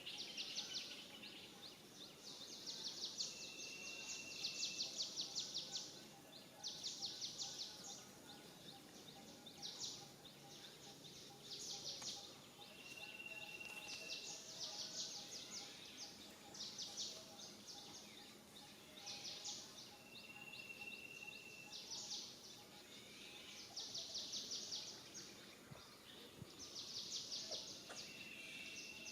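Outdoor ambience of wild animal calls: high, rapid pulsing trills about a second or two long repeat every couple of seconds, with a short steady high whistle now and then.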